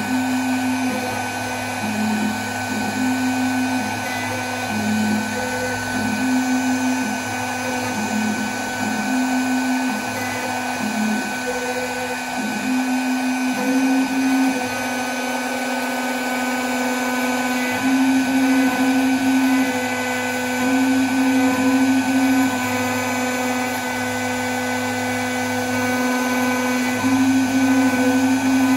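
CNC router carving inlay pockets into black walnut with a V-bit. The spindle runs with a steady high whine over the cutting noise, and a lower hum steps between two pitches every second or so as the machine moves along the cuts.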